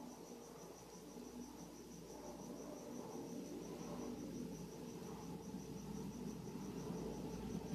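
A cricket chirping steadily: a regular run of short high chirps, several a second, over a low background rumble that grows louder near the end.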